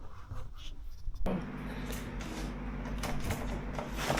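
Faint room quiet, then a steady machine hum that cuts in abruptly about a second in, with a few light clicks and a sharper knock near the end.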